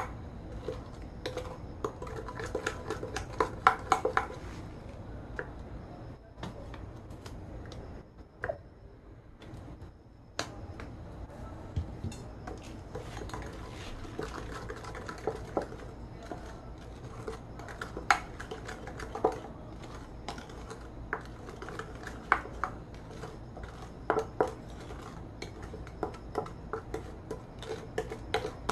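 Wooden spatula stirring thick sauce in a ceramic bowl, scraping and knocking irregularly against the bowl's sides, over a steady low hum.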